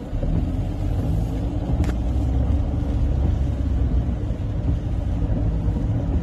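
Steady low rumble inside a car driving through heavy rain on a flooded road, with the hiss of rain and water around it and a faint click about two seconds in.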